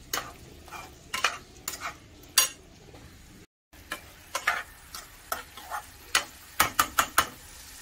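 A steel spatula stirring and scraping stuffed bitter gourds in a thick masala in a non-stick kadhai, in short irregular strokes over a faint sizzle from the pan. The sound breaks off briefly about halfway.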